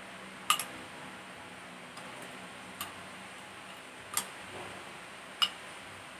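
A metal spoon clinking against a bowl while scooping food: four sharp clinks at uneven intervals.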